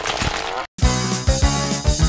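A cartoon sound effect with a fast pulsing texture, cut off suddenly; after a split second of silence, bouncy keyboard music with a deep bass line starts under a second in.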